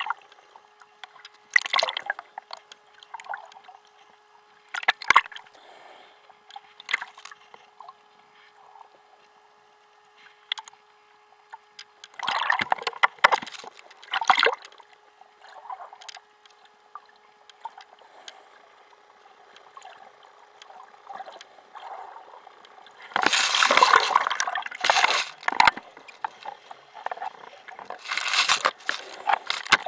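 Underwater recording: irregular bursts of bubbling, gurgling water noise over a faint steady hum. The loudest run of bursts comes about three-quarters of the way through.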